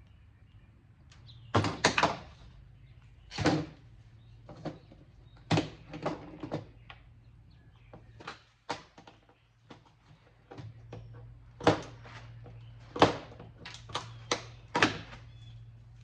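Irregular knocks, clicks and clinks of small metal parts being handled and pried while an audio equalizer is taken apart for scrap, over a steady low hum.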